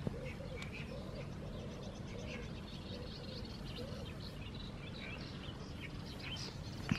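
Small birds chirping and twittering over a steady low background rumble, with a sharp click near the end.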